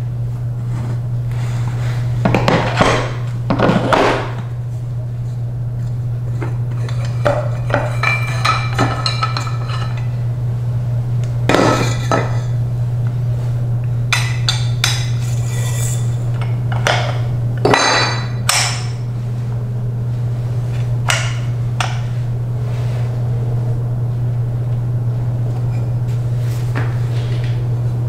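Metal parts of a Maytag washer transmission clinking and knocking at irregular moments as they are handled and pre-fitted, one part ringing briefly about eight seconds in. A steady low hum runs underneath.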